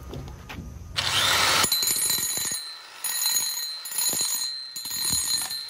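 Angle grinder with a PCD diamond cup wheel grinding a concrete floor to prepare the surface for repair mortar: about a second in, a loud rasp as the disc bites the concrete, then a steady high whine from the grinder with uneven scraping underneath.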